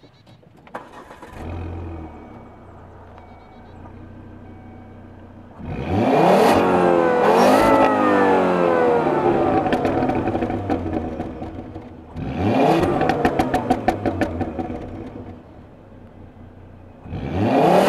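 2012 Volvo S60 T5's 2.5-litre inline-five heard at the tailpipe through its stock exhaust. It starts about a second in and settles to a steady idle, then is revved hard three times: a double blip about six seconds in, another near twelve seconds and one more near the end. Each rev sinks slowly back to idle.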